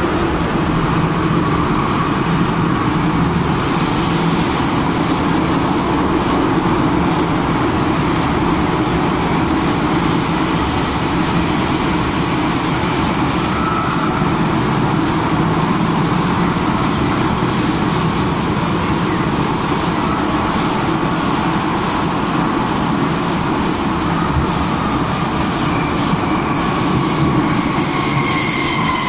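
MTR M-Train heard from inside the carriage while it stands in a tunnel: a loud, steady rush of the train's running equipment with a faint whine. Near the end a rising whine joins in.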